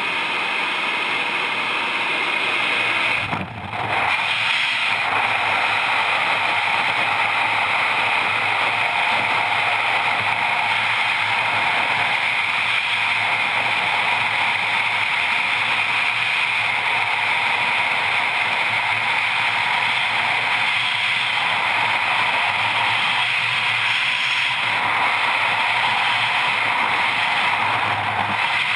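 Steady rush of wind on a helmet-mounted camera's microphone during a military freefall parachute jump. In the first few seconds it is the noise inside the aircraft at the open door, broken by a short dip about three and a half seconds in.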